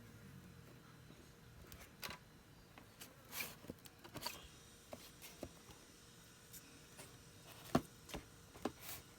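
Scattered light clicks, taps and short rustles of packaging and small pieces being handled while unboxing, with a sharper click about three-quarters of the way through.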